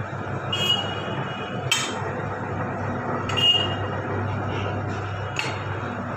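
Pipe roll-bending machine curling 1-inch stainless steel pipe into a ring, running with a steady low hum. A few sharp metallic clinks and short high squeals come as the pipe passes through the rollers and the coiled turns rub together.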